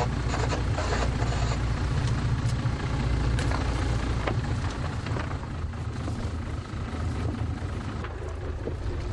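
Fishing boat's engine running steadily underway, a low rumble under a steady hiss of wind and water, with a few light knocks.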